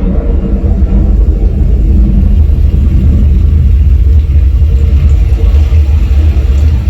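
Loud, steady, deep bass rumble from a soundbar's subwoofer playing Dolby Atmos demo content.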